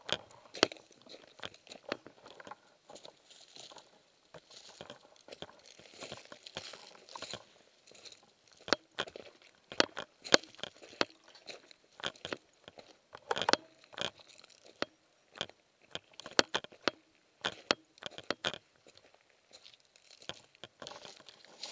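Footsteps crunching on gravel and dry fallen leaves, an uneven run of steps with some sharper, louder crunches among them.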